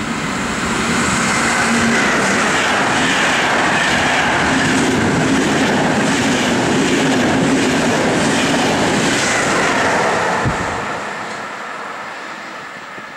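Frecciabianca passenger train passing at speed: a loud, steady rush of wheels and coaches on the rails that builds over the first second, holds until about ten seconds in, then fades as the last coaches go by. There is a brief low thump as it starts to fade.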